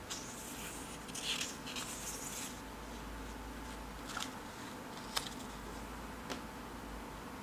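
Paper rustling and sliding as a hand handles and turns a page of a spiral-bound sketchbook, followed by a few light ticks.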